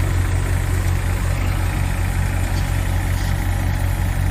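Tractor-driven paddy thresher running steadily while paddy is fed in: a steady low engine hum with a constant rushing noise over it.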